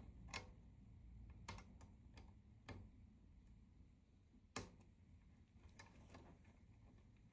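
Faint, scattered small metallic clicks and ticks as a tiny 1 mm split pin is worked through the split bearing brass on a model locomotive's valve gear by hand, with the sharpest click a little before halfway through; otherwise near silence.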